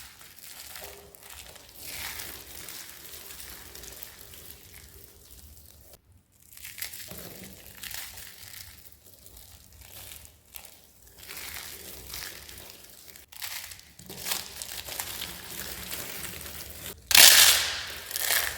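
Dry, crispy soap being crushed and crumbled, a steady run of crackling crunches broken by two brief pauses, with one much louder crunch near the end.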